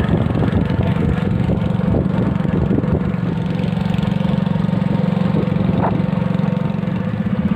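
Small outboard motor of a fibreglass fishing boat running steadily at a constant speed as the boat moves across the water.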